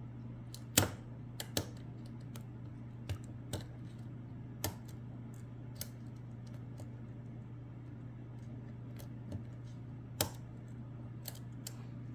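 Irregular small metallic clicks and taps of a steel lock pick working the pins inside the cylinder of a brass Lockwood Twin lock, loudest about a second in and again near ten seconds.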